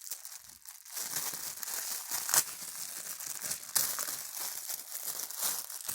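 Toy packaging being handled and torn open: continuous crinkling and rustling, with two sharper, louder rips about two and a half and nearly four seconds in.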